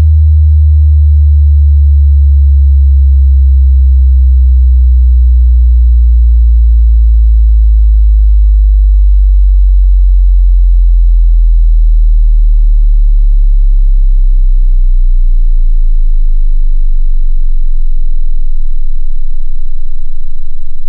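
Bass test tone: a loud, pure sine wave stepping down in pitch every few seconds, from around 100 Hz into deep bass below 50 Hz, for checking how low headphones or speakers can reach.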